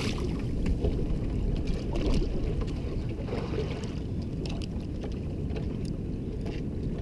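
Dungeness crabs being sorted and measured: short clicks and scrapes of crab shells and claws against a plastic crab gauge and the wire crab pot, over the boat's steady low rumble.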